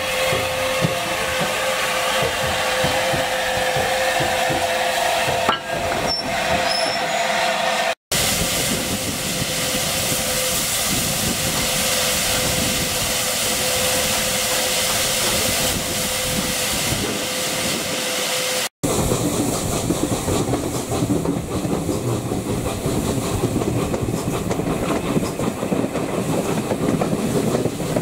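Steam-hauled train on the rails, heard in three cuts. First a steady whistling tone over a rumble, then an even loud hiss, then the rhythmic clatter of coach wheels over rail joints.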